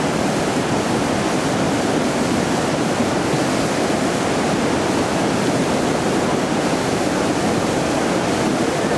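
A river in flood, its muddy floodwater rushing and churning past bushes on the bank: a loud, steady rush of water.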